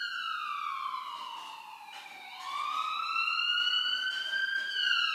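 An emergency-vehicle siren wailing, its pitch gliding slowly down for about two seconds, then rising again and starting to fall near the end.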